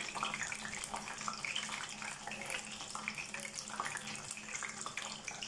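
Whole flour-dusted red tilapia frying in plenty of hot oil in a frying pan, a steady dense sizzle and crackle, just after the fish went into the oil.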